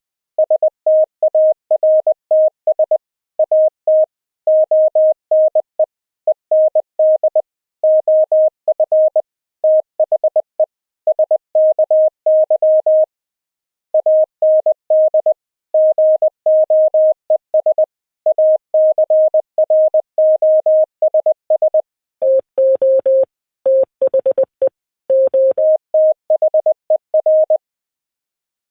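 Fast Morse code (CW): a pure sine-wave tone from a software code practice oscillator, keyed on and off in a quick, even dot-dash rhythm. For a few seconds near the end, a slightly lower, rougher and hissier tone carries the keying, then the clean tone returns.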